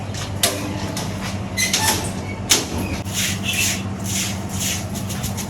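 Knocks and clatter of objects being handled, then a run of short rustling or scraping strokes, over a steady low hum.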